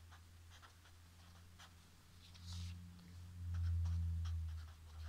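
Marker pen writing on paper: short, faint scratching strokes as handwriting goes down the sheet, over a low hum that swells about two-thirds of the way through.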